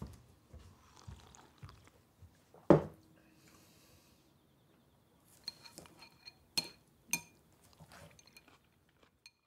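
Tableware sounds of someone eating at a table: scattered soft taps, a dull knock on the table a little under three seconds in, then a few sharp clinks of china or glass that ring briefly, around six to seven seconds in.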